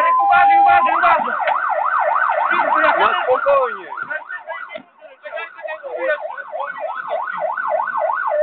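Fire engine siren switching about a second in from a two-tone hi-lo to a fast yelp that sweeps up and down about three to four times a second. The yelp drops out for about a second near the middle, then resumes.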